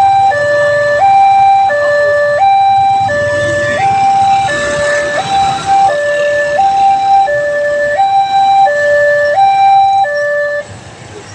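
Railway level-crossing warning siren sounding a steady two-tone hi-lo alarm, each tone held about two-thirds of a second. It cuts off near the end.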